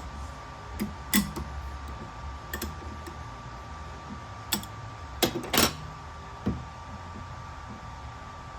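Scattered clicks and knocks of metal parts and tools being handled while a paper cutter is taken apart, about seven in all, the loudest a little past halfway, over a faint steady hum.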